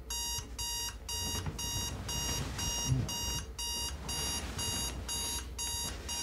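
Digital bedside alarm clock beeping, a steady run of short electronic beeps at about two a second, which stops near the end as it is switched off.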